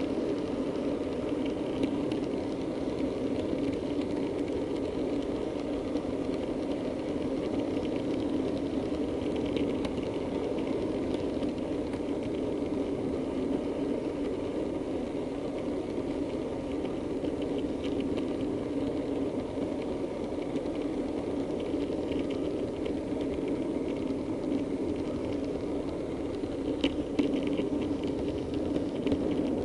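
Model diesel multiple unit running along its layout track, heard from on board: a steady whirring rumble of motor and wheels on rail, with a few sharp clicks and a slight rise in loudness near the end.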